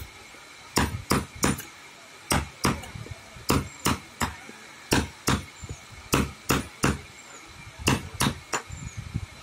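Hammer blows, struck in runs of three quick strikes about a third of a second apart, with a short pause between runs.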